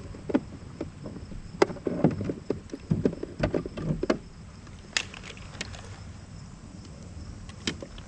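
Knocks, clatter and clicks against a plastic fishing kayak and its gear while a caught fish is handled in the landing net, busiest in the first half, with two single sharp clicks later. A steady low rumble lies underneath.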